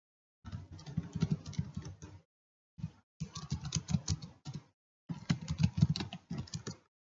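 Computer keyboard typing in three quick bursts of rapid key clicks, with short pauses between them.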